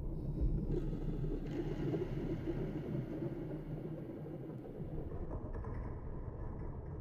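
Low rumbling ambient background sound, steady at first and slowly fading out.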